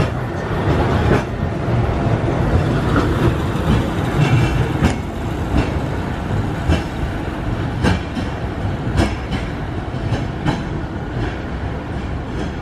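Peak Tram, Hong Kong's cable-hauled funicular car, rolling past close by and on up the track: a steady rumble of its wheels on the rails with a click about once a second.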